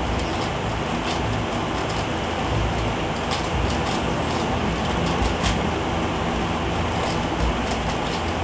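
Steady rushing background noise with a few faint, scattered plastic clicks from an Eastsheen 5x5 cube being turned in the hands.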